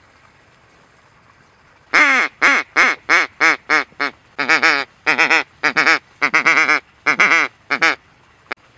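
Mallard duck call blown close by, a rapid run of about twenty loud hen-mallard quacks at roughly three a second, each note dropping in pitch; a single sharp click follows near the end.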